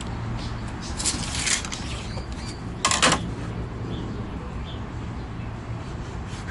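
Workshop handling noises while a plywood strip is measured: a short scrape about a second in and a louder, brief rasp about three seconds in, over a steady low hum.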